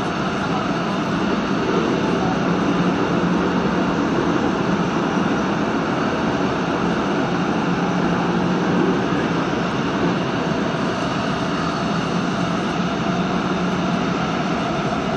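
Busan Metro Line 3 subway train running at steady speed through a tunnel, heard from inside the car: a continuous rumble of wheels on rail with a steady low hum.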